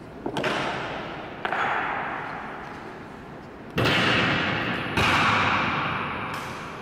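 Honor guards' drill impacts on a stone floor, boots and rifle butts striking hard: a quick double hit at the start, another about a second and a half in, and two more louder ones near four and five seconds in. Each rings out in a long echo off the marble walls of the hall.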